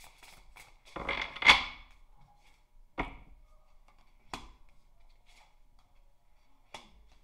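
Tarot cards being shuffled by hand, with quick light clicks and then a louder rush of cards about a second and a half in. Then three single sharp taps, spaced over the following few seconds, as cards are laid down on a table.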